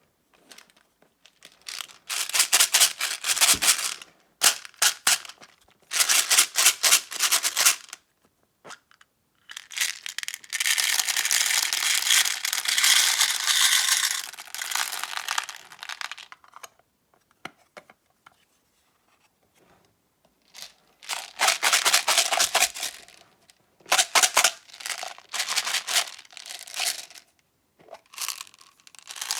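ASMR crinkling and crumpling of a crinkly material, in a run of crackly bursts a few seconds long with short silent pauses between them; the longest bursts run about six seconds from roughly ten seconds in.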